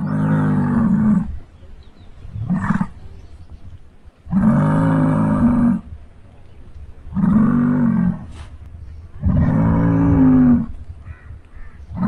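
Muskox calling: four long calls about three seconds apart, with one short call after the first.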